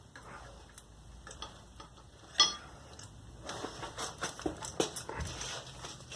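Metal exhaust parts and hand tools clinking and clicking during a scooter exhaust install. About two and a half seconds in comes one sharp, ringing metallic clink, followed by a quicker run of clicks and taps.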